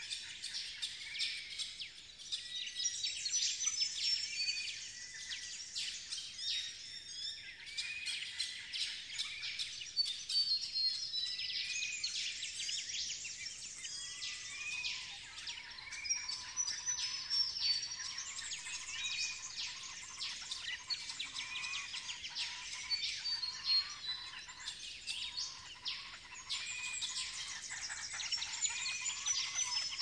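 Dawn chorus of many birds: overlapping chirps and whistles, with one short rising-and-falling call repeated about once a second and a lower call joining about halfway through.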